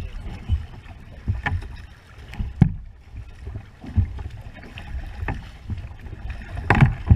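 Double-bladed kayak paddle strokes in choppy water: a splash about every second and a bit as the blade dips on alternate sides, over a steady low rush of water and wind.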